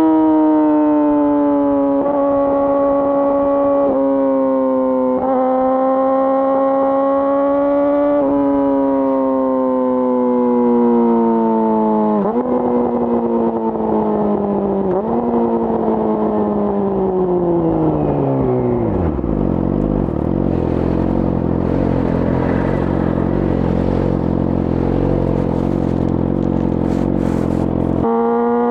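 A 2018 Yamaha R6's inline-four engine, breathing through an Akrapovic full exhaust, runs at high revs with a few drops in engine speed as it shifts up. It then slows down, with engine speed jumping up twice on downshifts, and settles to a steady idle for about eight seconds before revving up again near the end.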